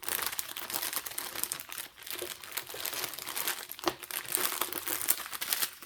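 Packaging crinkling and rustling with irregular crackles and small clicks as a diamond painting kit's accessory pack is handled and unwrapped.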